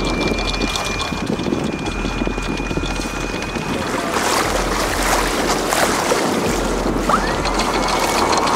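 Strong gusting wind, around 30 knots, buffeting the microphone, with wind-whipped chop rushing against the hull of a sailboat.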